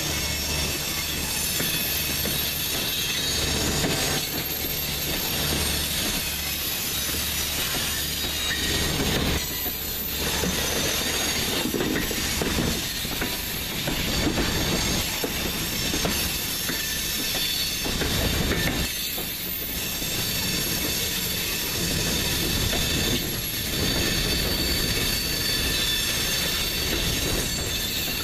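Loaded freight cars of a CSX train rolling past close by: a steady rumble of steel wheels with irregular sharp clacks as the wheels cross the rail joints and diamond crossing, and a thin high-pitched wheel squeal over it.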